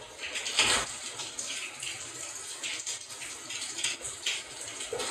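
Hands handling and lifting a compact TIG welder: faint scattered rustles, light knocks and scrapes, with a slightly louder knock under a second in.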